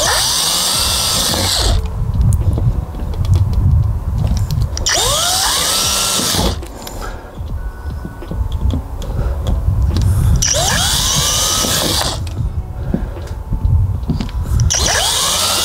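DeWalt cordless drill run four times in short bursts, each with a whine that rises as the motor spins up, boring small pilot holes for the shower unit's mounting screws.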